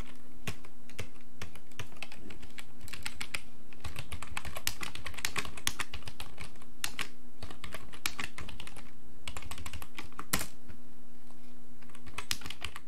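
Typing on a computer keyboard: fast, irregular keystroke clicks, with a faint low steady hum underneath. The sound fades out near the end.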